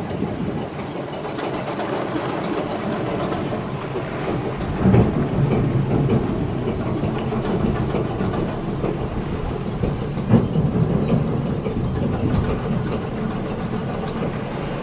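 Inboard diesel engine of a small converted tugboat running slowly as the boat manoeuvres along the channel, a steady low drone, with two short knocks about five and ten seconds in.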